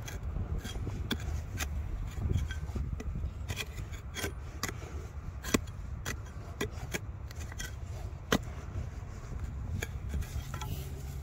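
Rock pick scraping and prying at a nodule in basalt: irregular scraping with many sharp clicks of tool and stone on stone, two of them louder, about five and eight seconds in.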